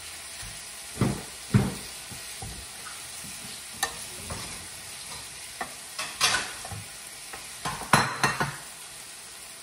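Chicken pieces with onion and garlic sizzling steadily in a hot frying pan, while a utensil stirs them, scraping and knocking against the pan at irregular moments, most sharply around a second in and again near the end.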